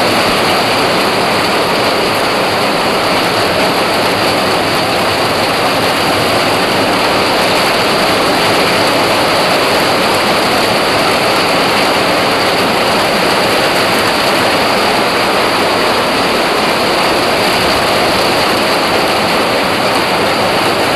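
Very heavy rain beating down in a steady, unbroken loud hiss.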